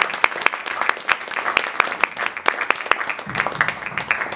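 Audience applauding, dense irregular hand clapping.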